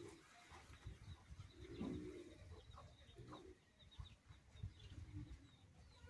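Indian ringneck parakeet making a few faint, soft, low murmuring calls, the strongest about two seconds in, with some light clicks.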